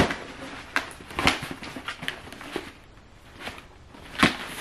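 Cardboard Adidas shoebox being picked up and handled: a sharp knock right at the start, scattered taps and rustles, and another knock near the end.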